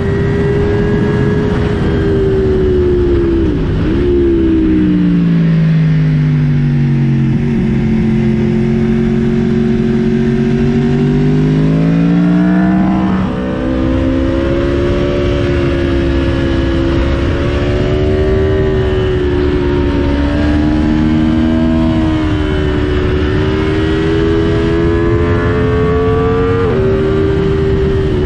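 Aprilia Tuono V4 motorcycle's V4 engine under way, heard with wind rushing over a helmet-mounted mic. Its pitch falls over a few seconds as it slows, holds low, climbs again and breaks off briefly about halfway, then runs at middling revs with small rises and dips.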